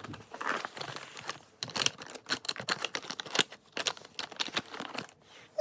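Close-up handling of a jacket's stuck zipper and its fabric: an irregular run of small clicks, scratches and crinkles.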